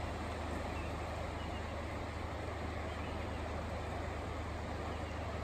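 Floodwater from a river that has burst its banks rushing steadily over flattened grass and debris, a constant low rushing noise.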